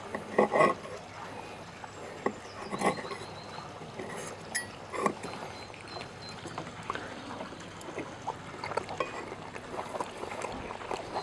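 Faint, scattered clicks and clinks of a knife and fork against a plate while cutting a piece of food.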